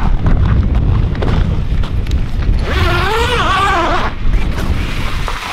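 Heavy wind buffeting the microphone in a dense, steady low rumble. Partway through, a person's voice briefly calls out.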